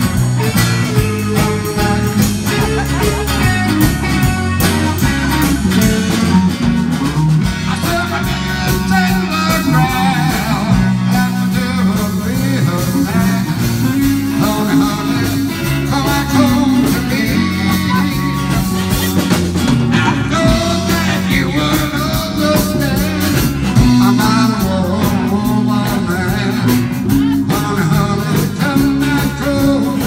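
Live rock-and-roll band playing in a room: acoustic and electric guitars and a drum kit, with a man singing.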